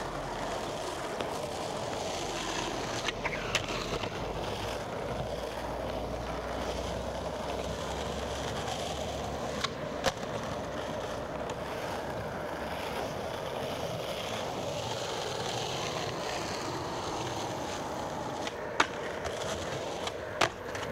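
Skateboard wheels rolling on an asphalt street, a steady rumble, broken by sharp clacks of the board popping and landing tricks a few seconds in, around the middle, and twice near the end.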